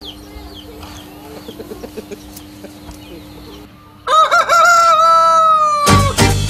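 A rooster crows once, a long crow of about two seconds starting about four seconds in, over faint chirping. Music comes in loudly just as the crow ends.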